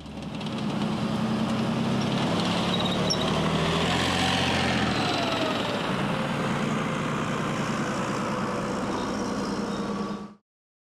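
Leopard 2-based armoured recovery vehicle's diesel engine and tracks running steadily, with a whine that rises and falls midway. The sound cuts off suddenly near the end.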